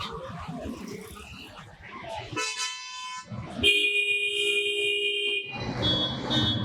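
Vehicle horns in street traffic: a short horn toot about two and a half seconds in, then a louder, steady horn blast lasting nearly two seconds, over continuous traffic noise.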